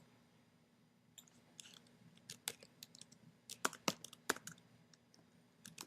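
Faint typing on a computer keyboard: scattered, irregular key clicks, as a search query is typed in.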